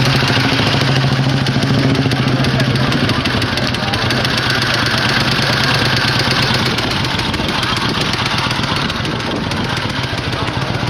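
Motorcycle engine running at idle, a steady low hum that holds for the first few seconds and then becomes rougher and eases off slightly.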